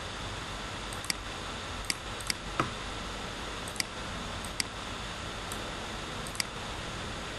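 Computer mouse clicking about eight times at irregular intervals, over a steady hiss.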